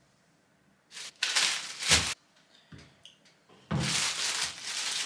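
Two stretches of hissing, rustling noise, with a sharp knock about two seconds in, after a nearly silent first second.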